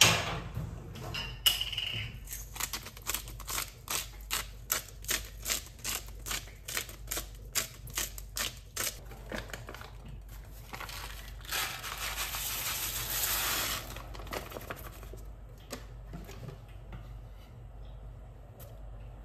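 Knife chopping on a cutting board: a steady run of sharp knocks, about three a second, for several seconds. A few seconds of hissing noise follow.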